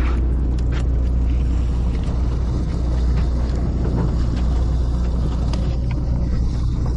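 Boat engine running steadily underway, a constant deep rumble, with a few faint clicks and knocks on top.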